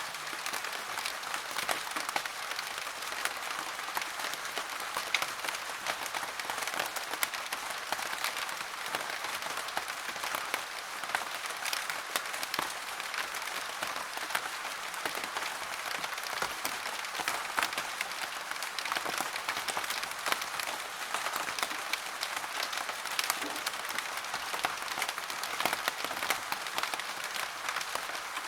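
Steady rain falling, a dense even hiss made of many fine drop impacts.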